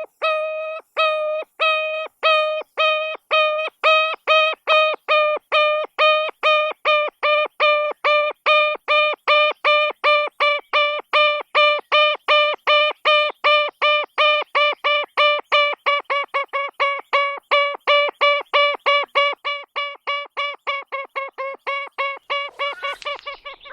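A long run of identical short pitched call notes from an animal, evenly spaced and slowly speeding up from about two to about four a second.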